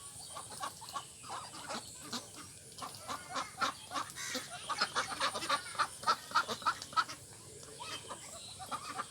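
Ducks calling: a run of short quacks and chatter that comes thick and fast through the middle and thins out near the end.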